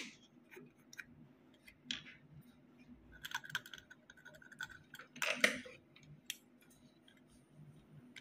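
Light scratching and small clicks of metal tweezer tips working over a circuit board around a chip's pins. The work is sparse, with a louder scrape about two seconds in and another just past five seconds.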